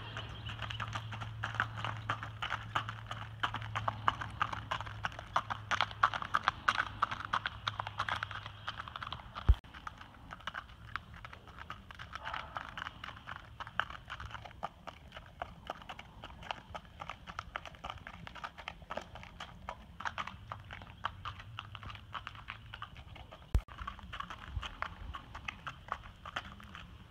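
Hooves of a gaited Tennessee Walking Horse–Spotted Saddle Horse gelding on a gravel driveway under a rider, a quick, even run of hoofbeats and crunching gravel. A low steady hum lies beneath the first half and fades out about halfway through.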